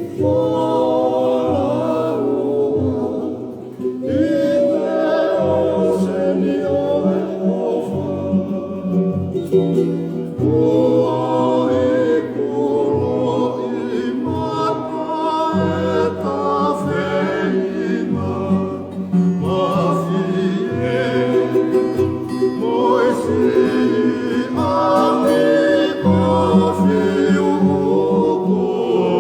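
Group singing in the Tongan faikava style: several voices singing together in harmony over a steady instrumental accompaniment.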